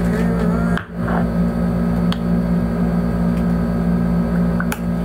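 A steady low hum with a whir under it, dipping briefly about a second in.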